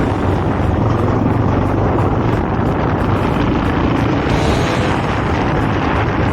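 Honda XR650L's single-cylinder four-stroke engine running steadily.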